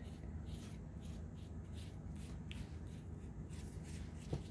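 Pastry brush stroking egg wash over a raw pie crust: faint, soft repeated brushing strokes, about two a second, with a small tick near the end.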